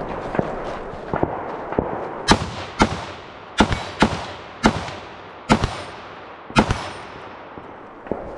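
A rifle fired in a string of shots. A few lighter cracks come in the first two seconds, then seven loud shots about half a second to a second apart, each with a short ringing echo.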